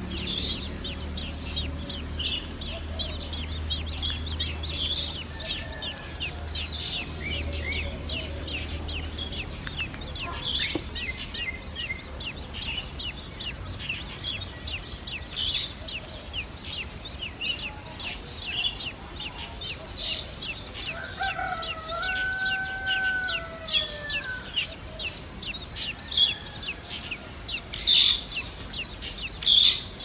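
Thrush nestlings begging with a continuous stream of short, high-pitched chirps, several a second, with louder bursts near the end. About two-thirds of the way in, a lower drawn-out call rises, holds and falls for a couple of seconds.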